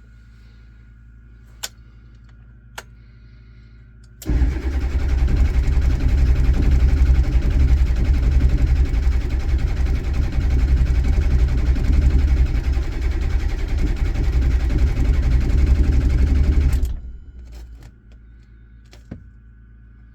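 Ford 7.3 Power Stroke V8 diesel cranking on its starter for about twelve seconds without catching, then stopping suddenly: a no-start. Two faint clicks come a couple of seconds before the cranking begins.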